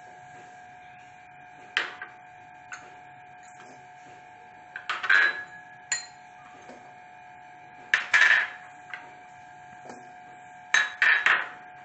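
Chopped vegetable pieces tipped from small glass bowls into a steel bowl, clattering in three short bursts about five, eight and eleven seconds in. Single knocks of glass bowls against the bowl or counter fall between the bursts, over a faint steady hum.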